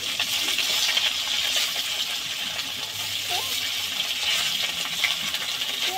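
Pieces of katla fish sizzling steadily as they fry in hot oil in an aluminium karahi, with a metal spatula clinking and scraping against the pan as the pieces are turned.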